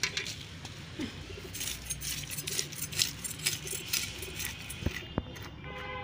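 Fish scales being scraped off against the curved iron blade of a floor-mounted boti knife: a quick run of short, scratchy, clinking strokes, with a few sharper clicks near the end.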